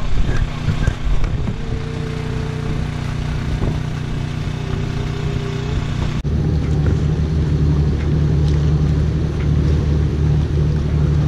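Boat engine running with a steady low hum, which becomes louder and fuller at a cut about six seconds in.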